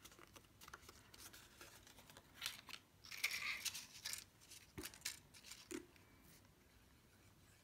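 Cardstock pieces being handled on a tabletop: light paper rustling with scattered taps and clicks, and a louder scraping rustle about three seconds in.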